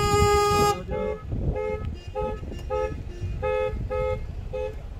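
Car horns honking: a long held blast that cuts off just under a second in, then a run of short two-note toots, about two a second.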